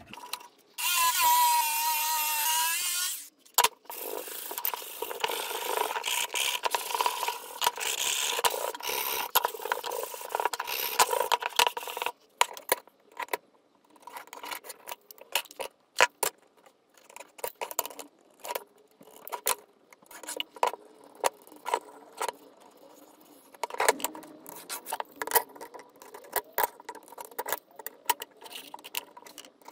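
A handheld power saw runs up briefly, then cuts through plywood for about eight seconds and stops. After that come light scattered clicks and taps of a ruler, square and pencil on the board.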